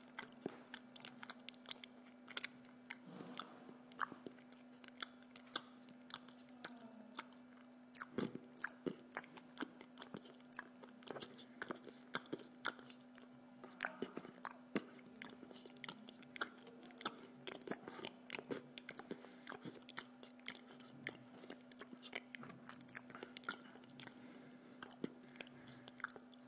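A person chewing food close to the microphone: irregular small clicks and crunches of the mouth and teeth, over a steady low hum.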